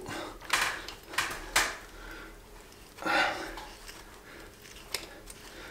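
A few short metallic clicks and scrapes from a hand flaring tool being turned and worked on a copper refrigerant pipe, with one sharp click near the end.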